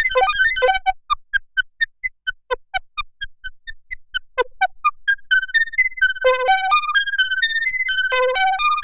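Behringer System 100 analog modular synthesizer playing a fast, high-pitched arpeggio of short plucked notes. About a second in the notes turn short and thin, and after about five seconds they fill out again.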